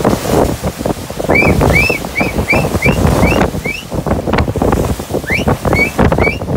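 Rushing white water of a boat's bow wave along the hull, with wind on the microphone. Over it comes a run of short, high whistled chirps, each rising then falling, about three a second, starting about a second in and coming again near the end.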